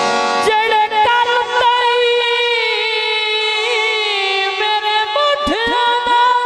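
Man singing long, wavering held notes in Punjabi folk style into a microphone, over the sustained chords of a harmonium.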